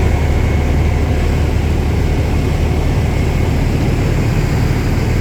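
Heavy diesel engine of a fire truck running with a steady low rumble.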